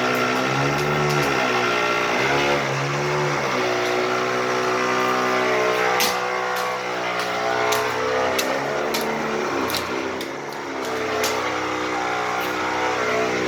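Engine of the gas-line work crew's machinery running steadily, its pitch dipping and rising again several times as it takes and sheds load. A few sharp clicks or knocks come about six to eight seconds in.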